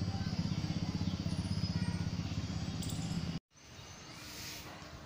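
A low, steady motor drone with a fast pulse, cut off abruptly about three and a half seconds in, followed by faint outdoor background hiss.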